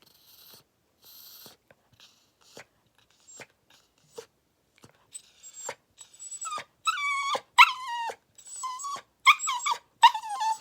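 A dog whining: a run of high-pitched whines, several falling in pitch, beginning about halfway through, after a few faint clicks and soft sniffs.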